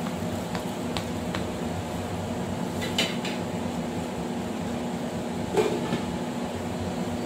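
A few light clicks and knocks of a spatula on a wooden cutting board, the loudest about three seconds in, over a steady background hum.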